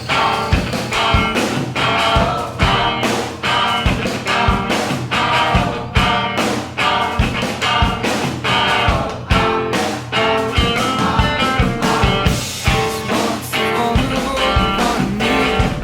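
Background music: an instrumental rock passage with guitar and a steady beat.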